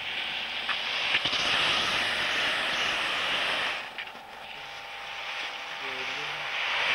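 Cross-country skis hissing and scraping over snow as skiers glide past, with a few sharp clicks near the start. The hiss drops off briefly about four seconds in, then builds again as the next skier comes close.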